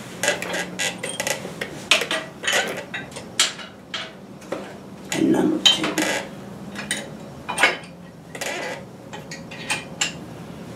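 Irregular metallic clinks and clicks of hand tools and steel hardware as the guide pins of a disc brake caliper are fitted and tightened.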